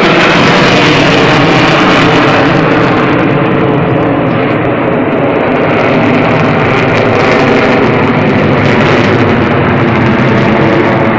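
Jet noise from a four-ship formation of Sukhoi Su-27 fighters flying overhead: a loud, steady rumble. The high hiss thins out about three seconds in.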